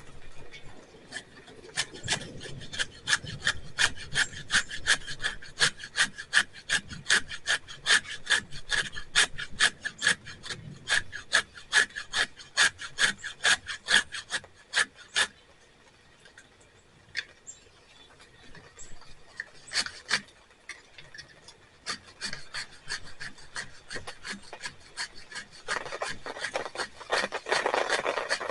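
Rapid scraping strokes, a steel edge rasped against wood or tinder, about three to four a second, then a pause and a few scattered strokes later, with a rustle near the end.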